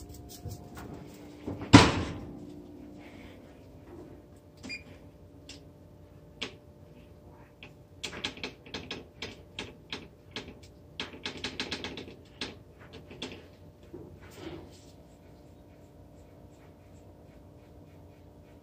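Oven rack pushed in and the oven door shut with one loud bang about two seconds in. Later comes a quick run of key presses on a Frigidaire range's electronic oven control, each a short click or beep, as the timer is stepped up.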